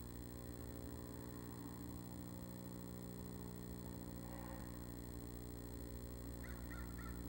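Steady electrical hum from the nest-box camera's microphone, with a bird outside giving a few faint, quick calls near the end.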